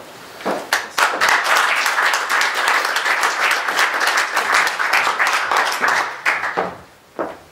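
Audience applauding, starting about half a second in and dying away near the end, with a few last single claps.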